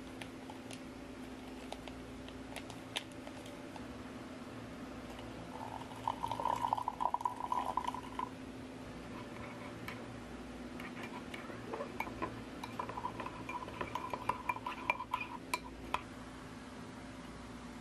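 Hot water poured from a flask into a ceramic mug for about two seconds, then a spoon stirring and clinking against the inside of the mug for several seconds, dissolving powdered drink mix. A few light taps come before the pour.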